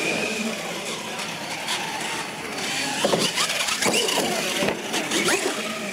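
Radio-controlled monster truck running, its motor whining up and down in pitch over tyre noise, with a run of clattering knocks in the second half as the truck bangs and tips about on the concrete floor.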